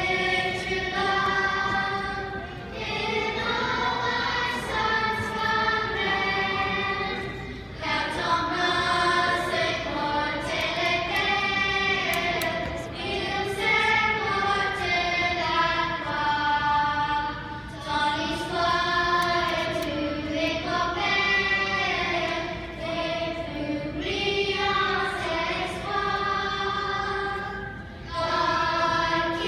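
A children's choir singing together in long held phrases, with brief pauses for breath between them.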